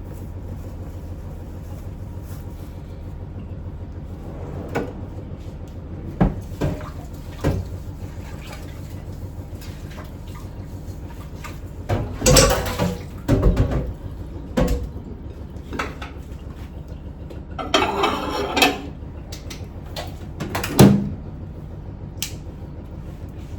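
Kitchen clatter of dishes and cupboards: a scattering of knocks, bumps and short rattles over a steady low hum of a running washing machine.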